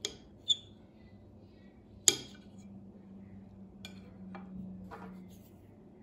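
Metal knife and fork clinking against a plate while cutting into soft poached quince dessert: a sharp clink at the start, a ringing clink about half a second in, the loudest clink about two seconds in, then a few lighter taps.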